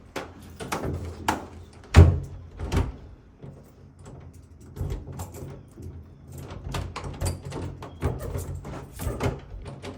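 A string of clicks and knocks from doors being handled, with a heavy thump about two seconds in.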